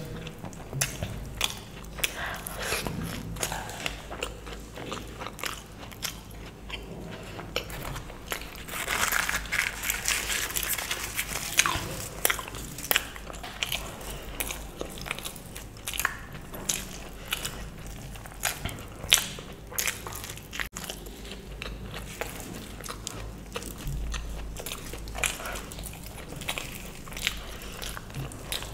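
Close-miked eating sounds of luchi (deep-fried puffed bread) with spicy potato curry: wet chewing and biting with many sharp mouth clicks and smacks, busier for a few seconds about a third of the way in.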